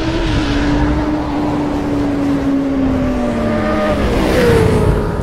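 Sport-bike engine sound effect: a held engine note that sinks slowly in pitch, then jumps up and falls again about four seconds in, over a rushing hiss.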